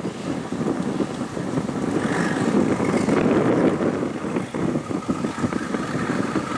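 Steady low engine rumble mixed with wind buffeting the microphone, fluttering irregularly.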